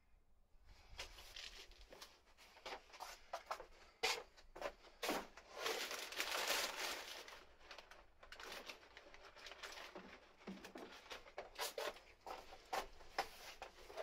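Rubber tire being handled in gloved hands: irregular rustling, scraping and light knocks, busiest a few seconds in.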